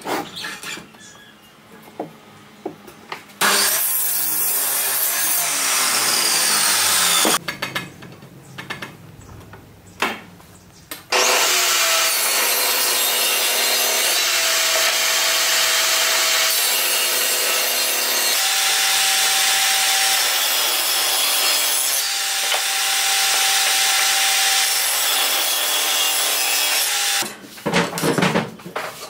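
A power miter saw cuts a wooden board about three seconds in, its whine falling as the blade spins down. After a short lull, an electric table saw runs steadily for about fifteen seconds while ripping a board into strips. Near the end come wooden knocks as the cut boards are handled.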